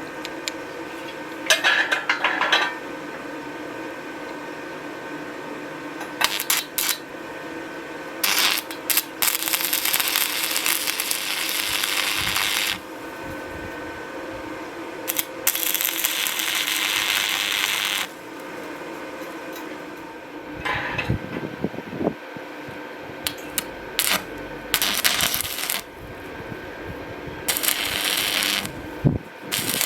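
Metal tools and parts being handled in a workshop: scattered clinks and clicks, with two stretches of several seconds of hissing, scraping noise over a steady hum.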